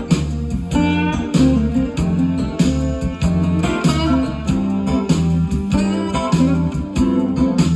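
Guitar-led music with bass and a steady beat, played back from a freshly recorded tape on a TEAC A-4010S reel-to-reel deck running at 7.5 ips.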